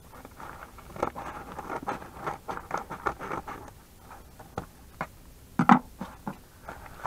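Scissors snipping and cutting through a yellow paper padded mailer, with the paper crinkling and rustling in short irregular strokes. A single louder knock about six seconds in as the scissors are set down on the table.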